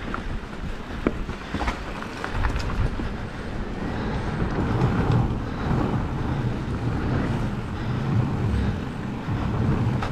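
E-mountain bike riding over a rough forest trail: steady tyre rumble and rattle, with wind buffeting the microphone and a few sharp knocks in the first two seconds.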